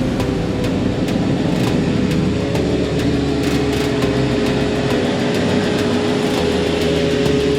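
A vehicle engine running steadily, with a steady tone that comes up about halfway through.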